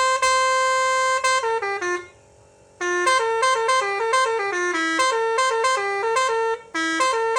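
Basuri V2 trumpet horn playing a melody: a long held note that steps down, a short silence, then a quick run of rising and falling notes, broken again briefly near the end before the next phrase.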